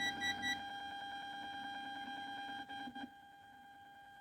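Ground-loop whistle from a Bluetooth USB player board coming through an amplifier's speaker: a steady high whine with overtones, opening with a few quick beeps. A few small crackles come just before it drops away about three seconds in, as a ground wire is joined between the audio board and the board's aux-input ground.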